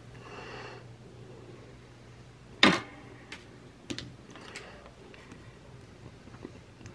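Small desk handling noises while planner stickers are placed: a soft papery rustle at the start, one sharp click a little under three seconds in, then a few fainter ticks.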